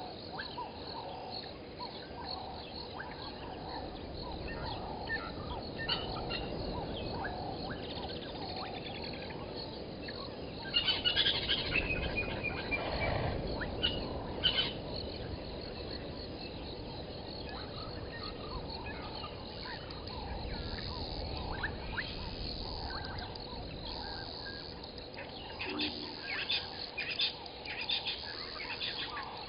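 Wild birds chirping and calling over a steady outdoor background. A louder cluster of calls comes about eleven seconds in, including one falling call, and another quick run of chirps comes near the end.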